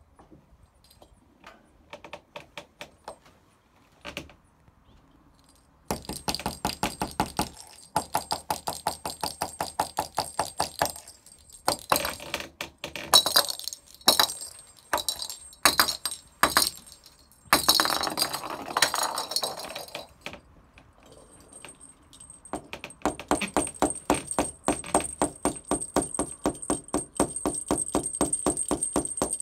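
Small plastic toy balls rattling and clicking as they roll across a plywood floor, in dense runs of rapid clicks that start about six seconds in and stop and start again, with a thin high ringing joining in the later part.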